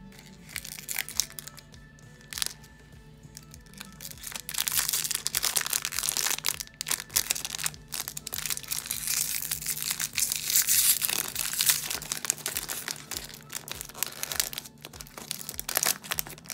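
Foil wrapping crinkling and rustling as it is unwrapped by hand: a couple of light clicks at first, then dense, continuous crinkling from about four seconds in, with sharper crackles as the pink wrapper and a silver foil pouch are pulled open.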